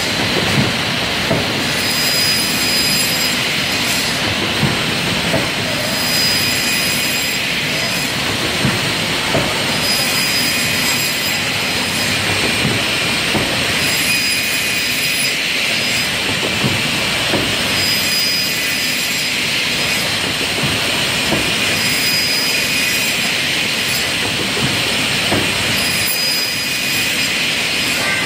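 Pallet block cutting machine with heated branding stamp running: a steady, loud mechanical din, with short high tones and light knocks recurring every couple of seconds as its pneumatic pusher and stamp cycle.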